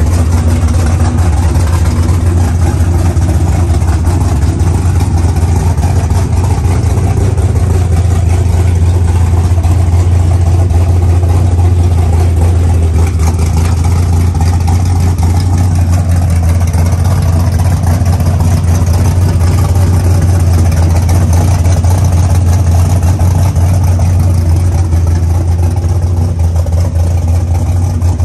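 Built 5.9-litre V8 of a 1998 Dodge Ram 1500 race truck idling steadily with a loud, even low drone.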